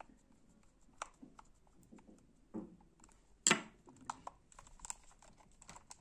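Scattered light plastic clicks and taps as the freshly reassembled Logitech G300s mouse is handled and turned over, with one sharper click about three and a half seconds in.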